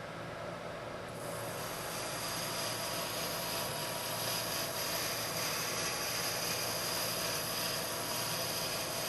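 Lathe running with a steady whine as a right-hand turning tool takes a hand-fed roughing cut of about fifty thousandths of an inch; the hiss of the cut comes in about a second in and holds steady.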